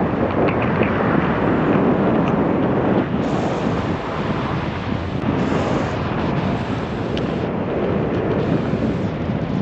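Steady rush of wind buffeting the microphone of a camera riding in a moving car.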